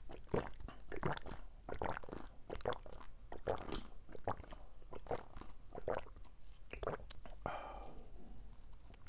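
Close-miked gulping and swallowing while drinking from a plastic cup: a quick, irregular run of wet mouth and throat sounds, two or three a second.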